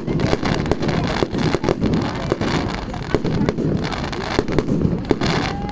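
Fireworks display going off: a rapid, irregular run of sharp bangs and crackles over a continuous rumble of bursts.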